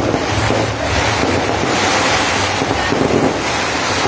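Fireworks crackling in a dense, steady wash of noise.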